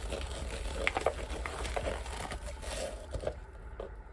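Light handling noises from resin-pouring work: scattered small taps, clicks and rustling over a steady low hum.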